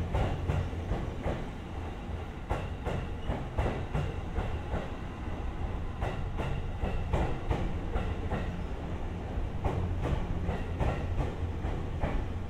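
JR East E257 series electric train running along the platform: a steady low rumble with a quick, irregular clatter of wheels over the rail joints.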